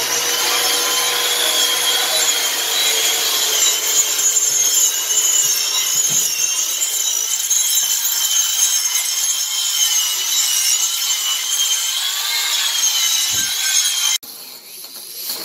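Electric angle grinder with a wood-carving cutter running under load, grinding out the hollow of a wooden bowl: a continuous cutting noise with a high motor whine that wavers in pitch. Near the end the sound cuts off abruptly to something much quieter.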